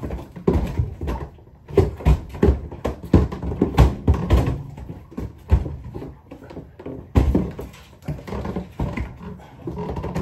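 Heavy, irregular footsteps and knocks as two men haul a gas water heater tank up a staircase, the tank bumping on the steps, mixed with grunts and straining breaths.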